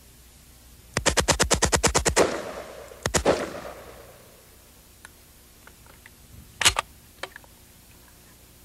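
A fully automatic AK-47 in 7.62×39 fires a burst of about a dozen rounds in just over a second, a quick even rattle, with echo trailing off. A short burst of about three shots follows, then one more shot near the end and a few faint clicks.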